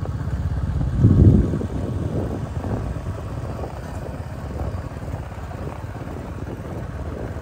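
Small motorcycle engine running steadily as it rides along a dirt track, a low throbbing pulse with wind on the microphone. There is a brief louder swell about a second in.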